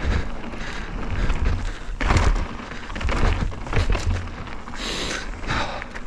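Mountain bike riding off a rock drop: tyres rolling and knocking over rock, with a heavy thud about two seconds in as the bike lands, and a rumble of wind on the microphone.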